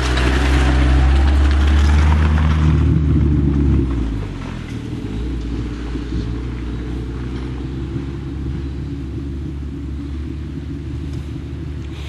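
Daihatsu Feroza off-roader's engine running as it drives slowly past through mud, with tyre noise in the mud for the first few seconds. The engine sound drops sharply about four seconds in, and a quieter steady engine drone carries on.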